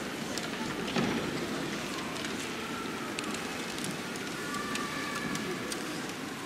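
Steady hiss of a large gym hall's background noise, with scattered faint clicks and a single soft thump about a second in.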